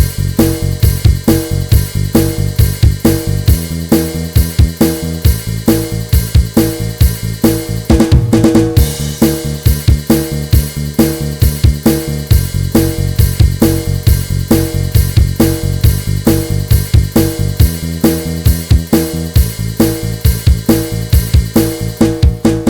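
Band backing track with the guitar part taken out: a drum kit playing a steady beat over a bass line, with a drum fill about eight seconds in.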